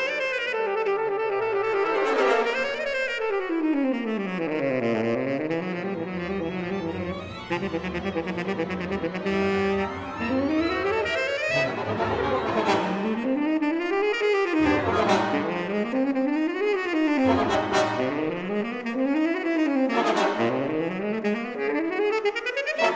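Contemporary chamber music: a tenor saxophone solo over a small ensemble of strings and winds. The music moves in long sweeping glides up and down in pitch, and from about halfway through it is punctuated by sharp accents every two to three seconds.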